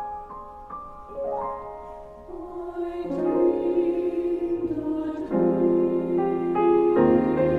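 Music: slow, soft piano notes, joined about three seconds in by a choir singing sustained chords that swell louder.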